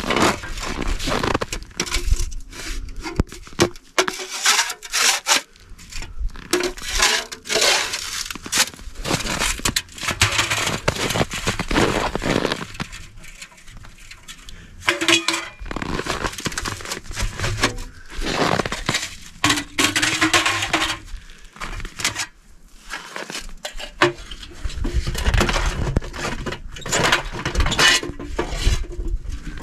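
Irregular metal clinks, knocks and rustling as a small camp wood stove and its parts are handled and packed away.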